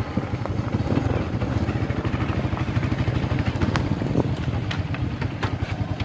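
Motorcycle engine running at a steady pace while riding, a fast even pulse, with a few sharp clicks or rattles in the second half.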